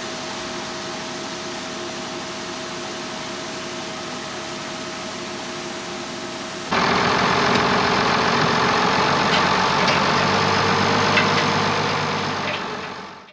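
International Harvester 1586 tractor's diesel engine running steadily. About seven seconds in, the sound cuts to a louder, rougher engine run that fades out near the end.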